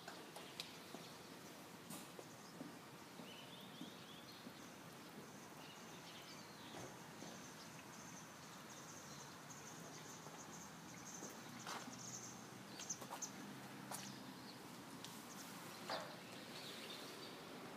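Quiet background with a faint, thin high-pitched chirping through the middle and a few soft, scattered clicks. No engine is running.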